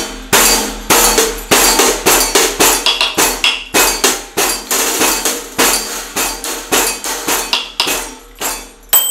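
Homemade stumpf fiddle (beat stick) being played in a steady beat, a little over two strokes a second. The pole is bounced down and struck with a drumstick, and the tambourine jingles and metal pie plates jangle with each stroke. A high ringing tone comes in at the very end.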